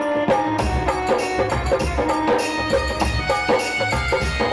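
Live Indian devotional folk music: hand drums such as tabla beat a steady rhythm under held melodic notes, with no singing, and a deep drum comes in about half a second in.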